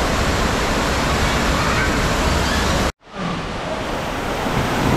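Steady rushing of water on a lazy river. It cuts out abruptly about three seconds in, then returns quieter and slowly grows louder.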